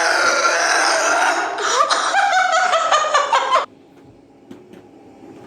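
A woman's long, loud belch, brought on by Mentos with Diet Coke, runs into a second stretch that pulses rapidly, then cuts off sharply about three and a half seconds in.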